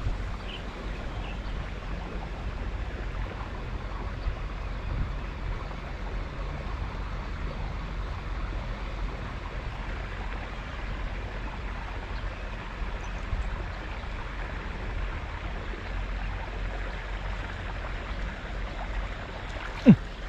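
Steady low background rumble, then near the end one sudden loud splash: a snakehead striking a topwater frog lure.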